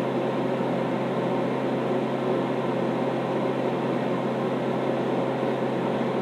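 A kitchen appliance running steadily: a constant electrical hum under an even fan-like whir.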